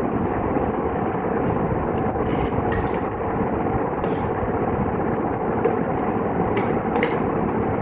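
Steady droning background noise with a faint hum, broken by a few light clicks or taps.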